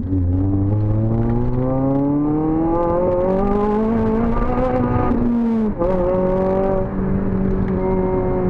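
Honda Civic Type R FN2's 2.0-litre four-cylinder i-VTEC engine through a COBRA resonated sports exhaust, revs rising steadily under acceleration, then a quick upshift about five and a half seconds in drops the pitch, and the engine carries on at steadier, lower revs.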